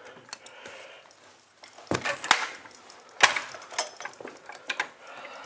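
Carpet power stretcher being moved and worked for another stretch: light rustling, then two sharp clacks about two seconds in and a louder knock about a second later, with lighter clicks after.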